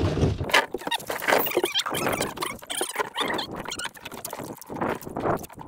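A run of irregular knocks, taps and scrapes on the deck of a small boat as a freshly landed fish is handled.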